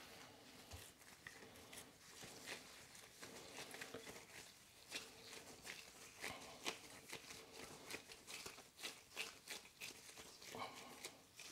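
Faint, irregular crinkling of plastic cling film and nitrile gloves as gloved hands handle and roll a ball of ground beef.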